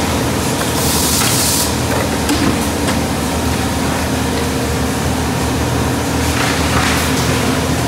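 Plastics-processing machine running with a steady low hum, and a short high hiss about a second in.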